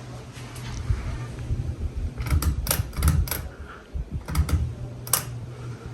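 Hunter Perspective ceiling fan's motor humming steadily; the fan has a failing capacitor. About two seconds in, a cluster of about eight sharp clicks and knocks sounds over the hum for about three seconds.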